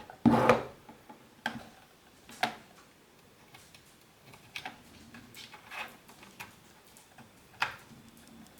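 Scattered clicks and light knocks of a USB cable being plugged into a vehicle diagnostic interface and its button being held, with the loudest knock just after the start and about half a dozen smaller ones spread through the rest.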